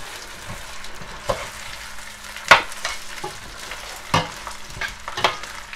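Washed basmati rice with onions being stirred in a stainless steel pot on the heat, with a steady faint sizzle. The spoon scrapes and knocks against the pot four times, the loudest about two and a half seconds in.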